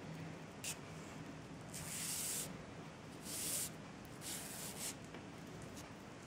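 Nylon paracord being drawn through another paracord's woven sheath on a metal paracord needle: a short scrape, then three longer rubbing swishes about a second apart.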